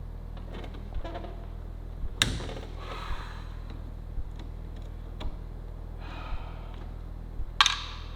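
Knocks and clatter of hand tools and trim parts being handled in a car interior: two sharp knocks, about two seconds in and near the end, with brief scraping between, over a steady low electrical hum and a faint tick about once a second.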